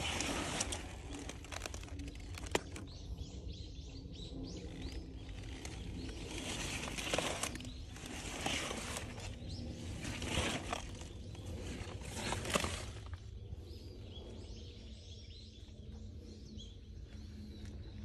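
Outdoor field ambience: a steady low wind rumble on the microphone, a few brief rustling bursts spread through it, and faint bird chirps.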